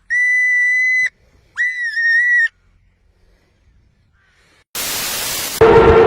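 Two long, steady, high-pitched whistle tones, the second wavering slightly in pitch. After a pause comes a burst of hiss, cut off near the end by a loud blast with a steady low tone.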